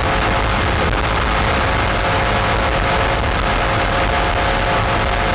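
Race jet boat's engine running hard at a steady pitch, heard from on board the boat.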